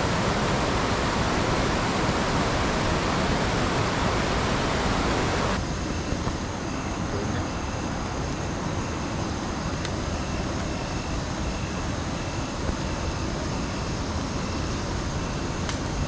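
Waterfall's steady rushing, cutting off abruptly about five and a half seconds in to softer rushing water with an insect chirping in a steady even rhythm, a little more than once a second.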